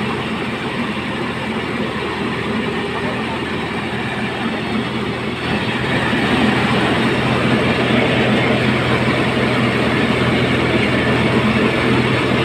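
Engine-driven mobile rice mill running steadily: a constant low hum under dense machine noise, getting louder about six seconds in.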